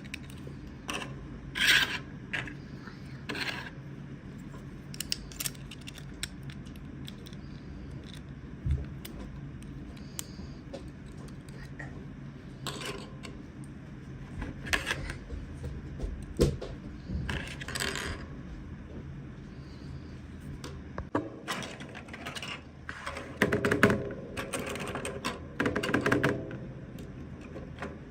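Small plastic toy pieces and packaging being handled: scattered clicks, taps and short rustling scrapes, busiest near the end, over a steady low hum.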